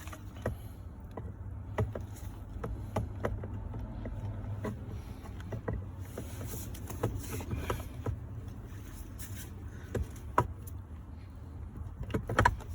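Scattered small clicks and taps of steering wheel parts being handled as a new rubber piece is fitted back in, over a steady low hum.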